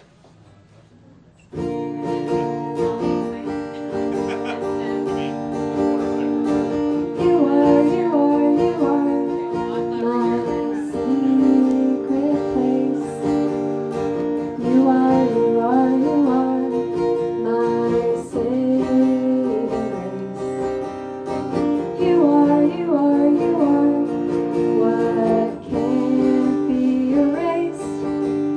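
Acoustic guitar strummed, starting about a second and a half in after a brief hush, with a woman singing over it from about seven seconds in.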